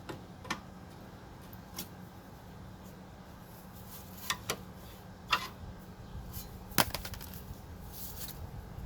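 Scattered sharp clicks and knocks of hand tools and parts being handled while a car's rear brake is taken apart, about six of them at uneven intervals, over a faint steady low hum.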